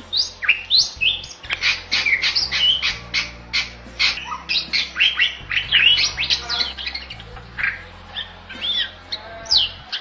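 Bali myna singing vigorously: a rapid run of sharp rising and falling whistles and chattering notes, thickest in the middle and thinning out near the end.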